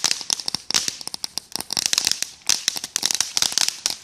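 Ground firework spraying sparks, with a dense, continuous crackle of many small rapid pops.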